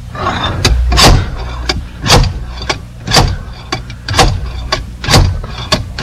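Slide hammer being worked to pull an ignition lock out of a car's steering column: a sharp knock about once a second, six in all, each with a lighter click about half a second before it as the weight is thrown back.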